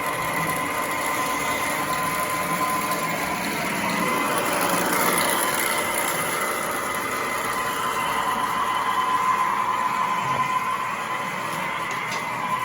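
Pre-war Marx electric toy train running on its track: a steady high motor whine over the continuous rattle of wheels on the rails.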